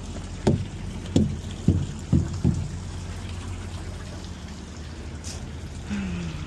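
Steady low hum of an idling tractor-trailer rig, with five sharp knocks in quick succession between about half a second and two and a half seconds in.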